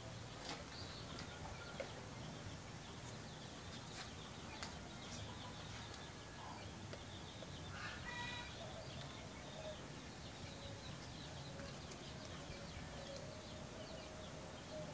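Faint bird calls, short and scattered, over a steady low background noise.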